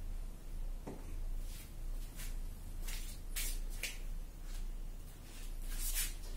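Scattered short rustles and scuffs as hanging canvas fabric is handled and smoothed by hand, over a low steady hum.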